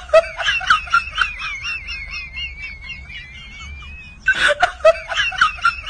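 Laughter: a run of quick, rhythmic high-pitched laughs, drawn out into a long wavering squeal in the middle, then a louder burst of laughing near the end.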